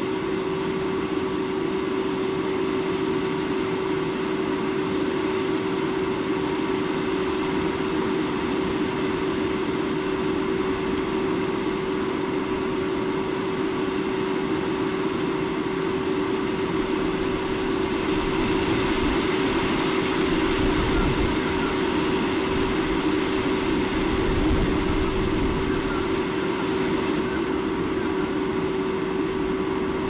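Steady outdoor noise of flowing river water, with a constant hum running through it. A deeper low rumble swells for several seconds in the second half, then settles back.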